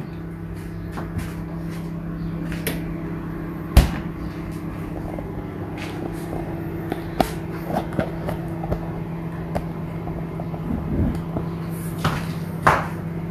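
Things being handled in an open refrigerator: a sharp knock about four seconds in, then scattered lighter clicks and knocks of jars and containers, over a steady appliance hum.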